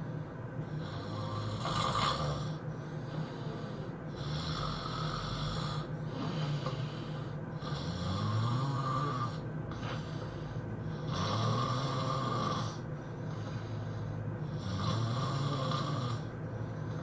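A person snoring in sleep, a rasping snore about every three to four seconds, five in all.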